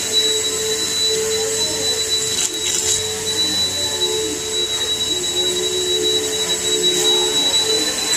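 A steady machine-like hum with a constant high whine, and a few short scrapes and clinks of a knife against a metal baking pan.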